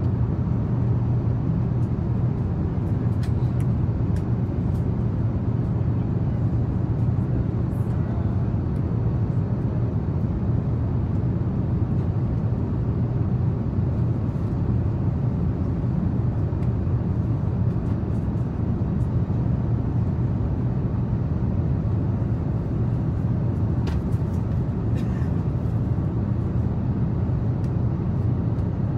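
Steady airliner cabin noise at cruise altitude: an even, low rumble of engines and airflow heard inside the passenger cabin, with a few faint clicks.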